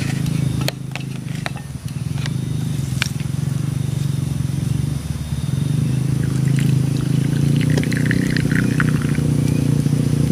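Stainless steel flask being opened with a few sharp clicks, then a drink poured from it into a mug in the second half. A loud, steady low hum runs under everything and cuts off suddenly at the end.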